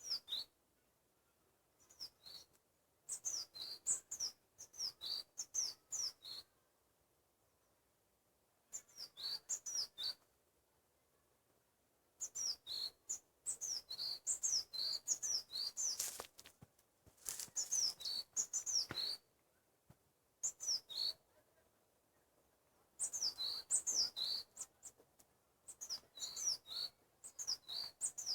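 A small songbird chirping: phrases of quick, high notes, each sliding downward, repeated in bursts of a second or two with short pauses between.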